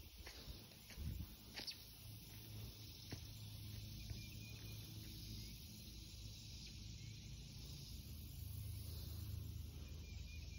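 Faint outdoor ambience: a steady high hiss over a low rumble, with a few soft clicks in the first three seconds.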